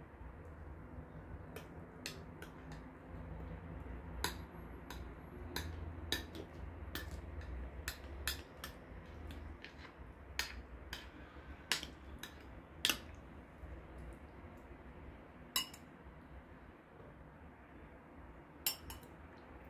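Metal spoon clinking and tapping against a glass bowl and a glass baking dish while spooning tomato sauce: irregular light clinks, a few sharper than the rest.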